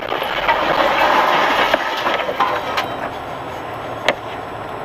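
Dashcam audio of a car driving on after a collision: steady road and tyre noise, louder for the first couple of seconds, then easing, with a single sharp knock about four seconds in.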